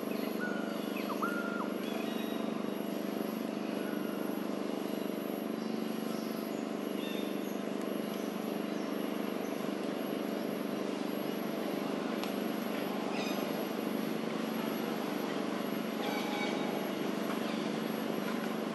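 Steady low hum, like engines running, with scattered short bird chirps over it.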